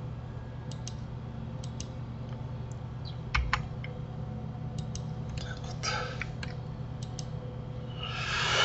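Computer keyboard and mouse clicks, scattered and irregular, as Blender shortcuts and bone adjustments are made, over a steady low electrical hum. A short hiss comes near the end.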